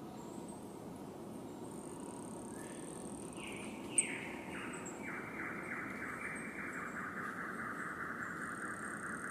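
Rainforest ambience of birds and insects. A thin high insect whine comes near the start, then a few calls step down in pitch, and from about five seconds in a long, fast trilling call runs over a steady low background noise. There is a single sharp click about four seconds in.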